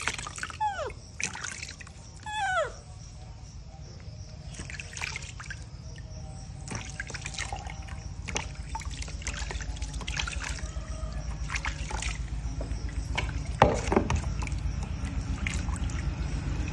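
Bath water splashing and trickling in a plastic tub as baby monkeys are washed and rinsed by hand. There are two short falling squeals from a baby monkey near the start.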